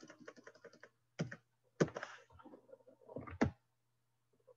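Computer keyboard: a rapid run of key presses as text is deleted, then three or four single, louder clicks a second or so apart, with a faint steady low hum underneath.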